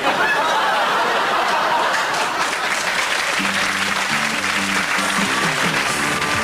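Studio audience applauding, joined about halfway through by theme music with a bass line stepping between notes.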